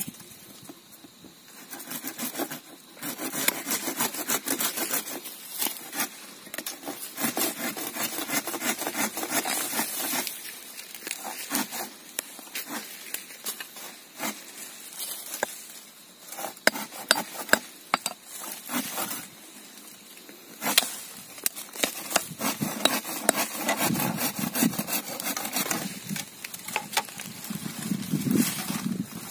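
Hand tools working a woody shrub out of rocky ground: runs of quick, rasping strokes of a blade cutting its stems, broken by short pauses. Near the end, a small digging tool chops into soil and stone at its base.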